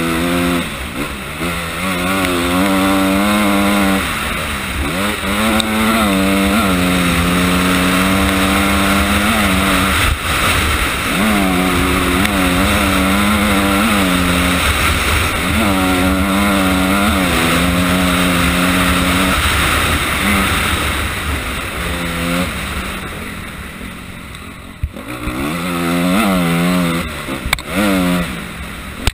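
Honda CRF250R's single-cylinder four-stroke engine revving under hard riding, its pitch climbing and dropping again and again as the rider works the throttle and gears. About three quarters of the way through it falls quieter off the throttle, then revs up again near the end.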